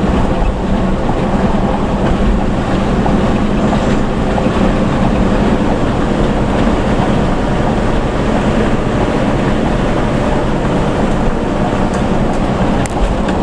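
Steady engine drone and road noise inside a bus cab cruising at highway speed.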